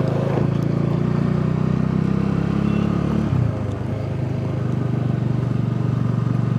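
Motorcycle engine running under way at a steady pulsing note. About three seconds in, the note drops and the sound dips briefly, then settles and runs steadily again.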